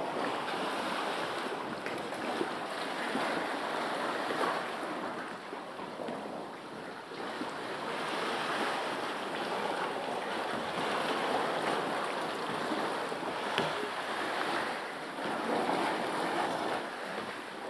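Seawater surging and churning inside a rocky sea cave: a steady rushing wash that swells and eases.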